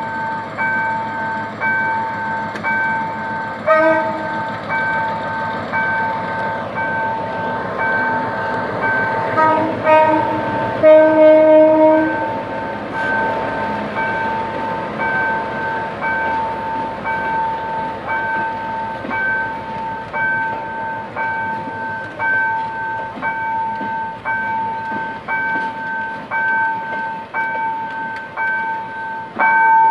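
Level-crossing warning bell ringing about three times every two seconds while a passenger train hauled by a GM G22 diesel locomotive rolls over the crossing, its coaches rumbling on the rails. The locomotive's horn gives short toots about four seconds in and near ten seconds, then a longer, louder blast for about a second.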